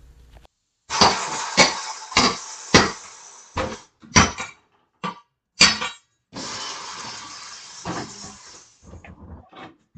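Sledgehammer blows on a manual bead breaker, about eight loud metallic strikes with ringing, roughly one every half second to second, followed by a steady rushing noise for a couple of seconds and a few lighter knocks.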